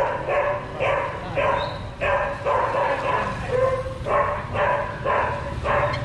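A dog barking over and over, about two barks a second, some dozen barks in a row that stop just before the end.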